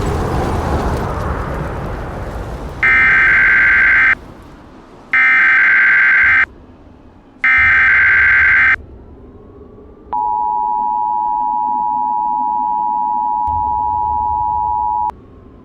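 Emergency Alert System tones: three bursts of about a second each of the warbling SAME header data signal, then the steady two-tone EAS attention signal held for about five seconds, announcing an incoming alert. Before them, the rumble of an explosion fades out over the first couple of seconds.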